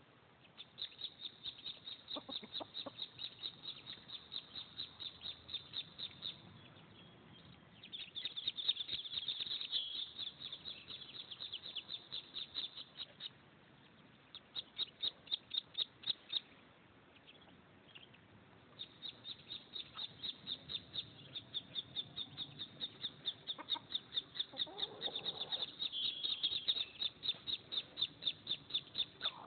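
A brood of Muscovy ducklings peeping: short high peeps repeated about four a second, in bouts with brief pauses between them. A lower call sounds briefly about 25 seconds in.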